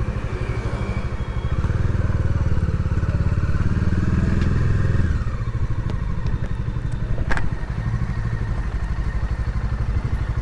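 Bajaj Dominar 400's single-cylinder engine running at low speed, pulling a little harder for a few seconds and then easing off as the bike slows. A single sharp click sounds about seven seconds in.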